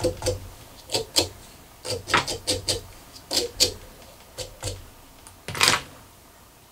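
Small steel-bristled brush raked through the soft feather and fur fibres of a fly to fluff them out, making a run of short scratchy strokes, some in quick pairs, with the loudest stroke about five and a half seconds in.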